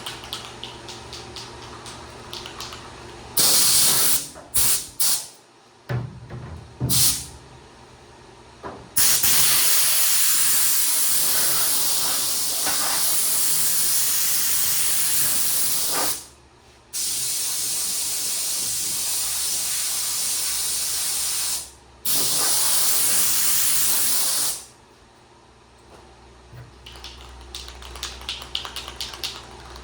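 Aerosol spray can of Rust-Oleum enamel hissing: a few short blasts, then three long passes of several seconds each as a coat of paint goes onto bare metal to keep surface rust off.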